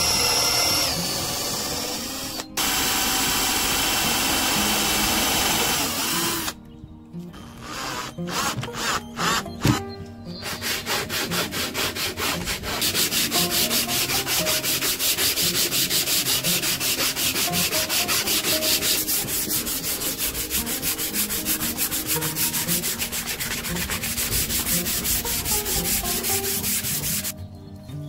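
An electric drill with a countersink bit boring into a wooden block, its motor whining steadily in two runs over the first six seconds. Then sandpaper is rubbed by hand along a wooden rail, first in scattered strokes and then in quick, even back-and-forth strokes through most of the rest.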